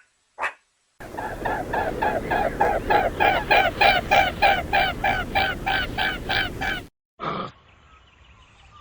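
Waterfowl honking in a rapid, even series of about three calls a second for roughly six seconds, followed by one short call.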